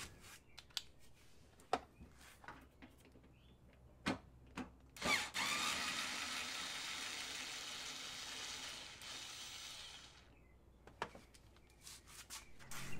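Cheap cordless electric screwdriver with a 10 mm socket backing out a bolt in a car's front wheel-well liner, running for about five seconds from about five seconds in, its pitch rising as it spins up. Light clicks and knocks come before and after as the socket is fitted and handled.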